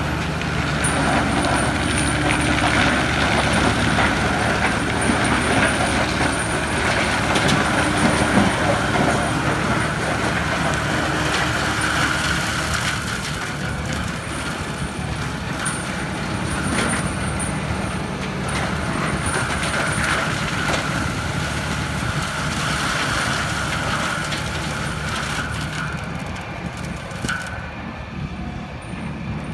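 Fendt 936 tractor's six-cylinder diesel running steadily under load, driving an FAE forestry mulcher whose rotor shreds young pine trees, with scattered cracks of wood being broken up. The upper part of the sound falls away near the end.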